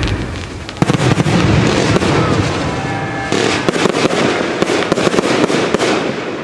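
Fireworks going off in rapid succession: a dense run of sharp cracks and bangs, with a sudden loud volley about a second in, easing a little toward the end.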